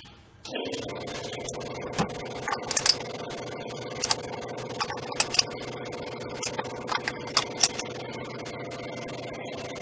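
Kia car engine idling, starting abruptly about half a second in, with a steady hum and irregular sharp ticks and clicks scattered through it.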